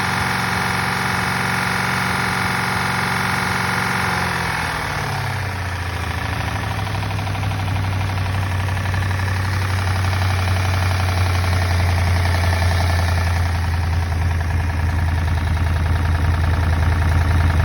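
Buick 425 Nailhead V8 running, its speed dropping to a lower idle about five seconds in, with the loud valvetrain clatter, or tapping, that is still there after the pushrods were readjusted to .020 in of hydraulic lifter preload.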